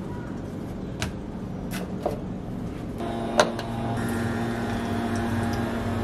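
A few light clicks and a sharper knock, then a steady machine hum that starts about halfway through and keeps going.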